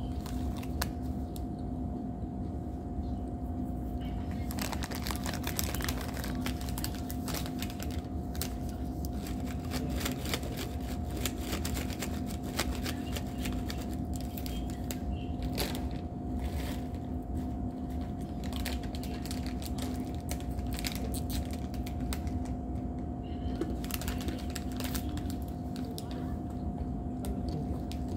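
Thin plastic snack bag crinkling and crackling as it is handled and opened, in a dense run of small clicks that starts a few seconds in. A steady low hum runs underneath.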